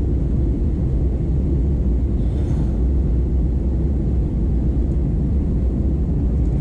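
Cabin noise of an Airbus A320 in flight: a steady low rumble of the engines and rushing air, heard inside the passenger cabin. A brief faint hiss comes about two seconds in.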